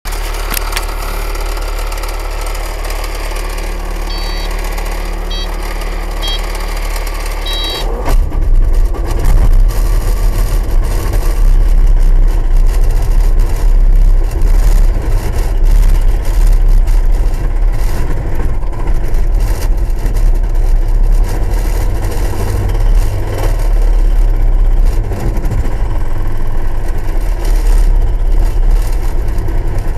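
Mini excavator engine idling, heard from inside the cab, with a few short electronic beeps. About eight seconds in, the excavator's hydraulic breaker starts hammering on concrete: a rapid, steady pounding, much louder than the idle, that goes on to the end.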